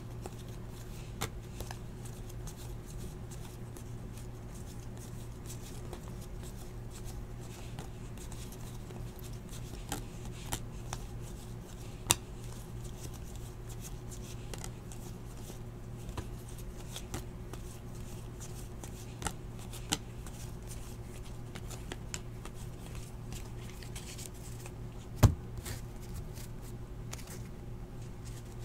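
Basketball trading cards being handled and flipped through, with scattered soft clicks and taps over a steady low hum; one sharper knock about 25 seconds in.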